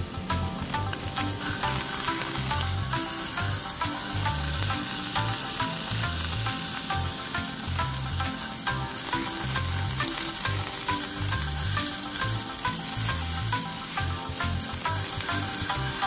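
Beef and vegetables sizzling steadily as they grill in a small earthenware pan over a tabletop burner. Background music plays underneath.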